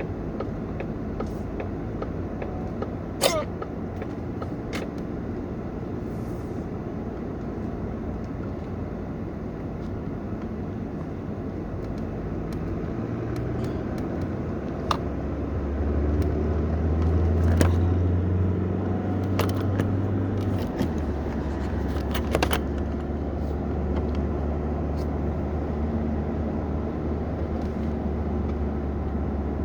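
Car cabin noise while driving: steady engine and road rumble. The engine note grows louder about halfway through, then drops and settles lower a few seconds later. A few short sharp clicks are scattered through it.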